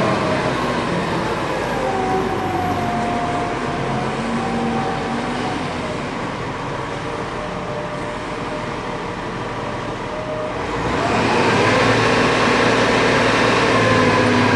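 Diesel engine of a top lifter container handler running under load. Its pitch falls over the first few seconds, then it revs up and gets louder about eleven seconds in while the spreader mast works a container.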